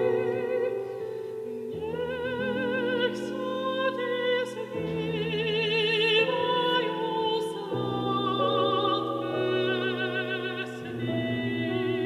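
Mezzo-soprano singing in operatic style with a wide vibrato, accompanied by sustained piano chords that change about every three seconds.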